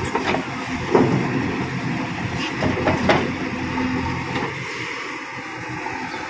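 Diesel engines of a JCB 3DX backhoe loader and a tractor running steadily, with a few sharp clanks and thuds as the backhoe's bucket dumps mud into the tractor's trailer, the loudest about a second in and more around three seconds in.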